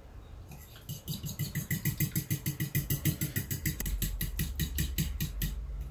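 Hand-beating mayonnaise (egg yolk and olive oil) in a jug, a utensil whisking quickly against the sides: an even rhythm of about six strokes a second that starts about a second in and stops near the end.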